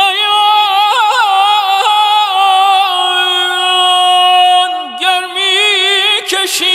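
Solo unaccompanied male voice singing a Persian avaz in dastgah Homayoun, in a high register without words: rapid warbling tahrir ornaments, then a long held note, then a brief break near the end before the ornaments resume.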